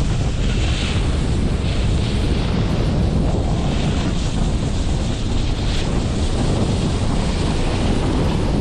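Wind buffeting the microphone during a snowboard run, with the board's edge hissing and scraping over the snow in swells as it turns.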